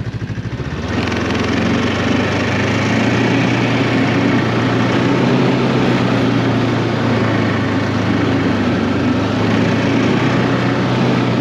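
BRP Ski-Doo Tundra 600 ACE snowmobile with a four-stroke twin-cylinder Rotax engine. It picks up from idle about a second in, then runs steadily as the sled moves along the trail.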